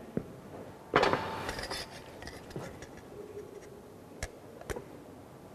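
Thin sheet metal being handled at a manual sheet-metal folding machine: one ringing metallic clink about a second in, then a few light taps as the sheet is set into the clamp.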